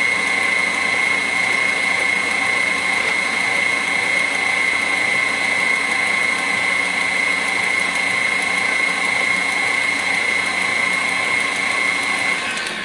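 KitchenAid Classic stand mixer running steadily with its wire whip beating sweet potato pie batter in a steel bowl: a constant high motor whine that starts to wind down near the end.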